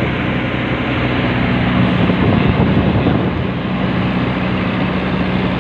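A river boat's engine running steadily under way, a constant drone over the rush of water and wind.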